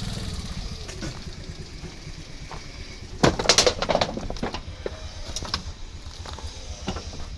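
A vehicle engine idling with a low rumble that fades over the first second or two, then a short cluster of knocks and clatter about three seconds in.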